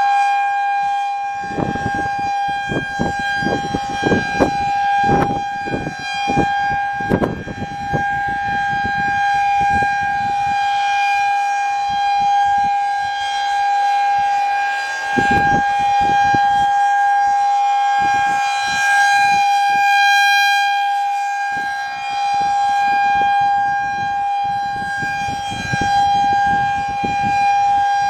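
Federal Signal 2001-SRN rotating electromechanical tornado siren sounding a steady alert tone during a test: one held pitch with overtones that swells and fades slowly in loudness as the horn turns. Irregular low rumbles come and go underneath in the first third and again near the end.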